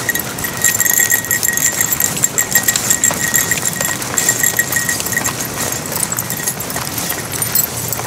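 Footsteps crunching along a gravel dirt road at a walking pace, with a small metal jingle ringing in step for the first few seconds.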